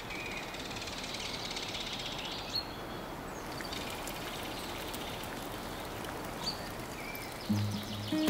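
Outdoor forest ambience: songbirds chirping now and then over a steady wash of background noise. Near the end, low sustained notes of music come in.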